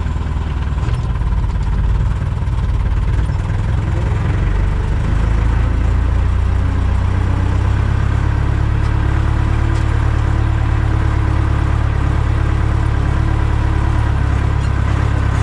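Deutz-Fahr DX 3.60 tractor's air-cooled diesel engine running steadily, picking up a little in loudness about five seconds in.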